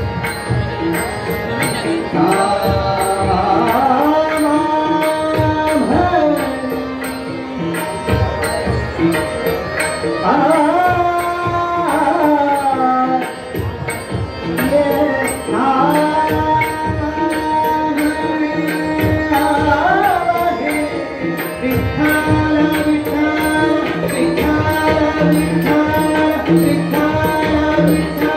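Live Marathi abhang (devotional song): a male voice singing gliding, held phrases over harmonium and a steady tabla rhythm.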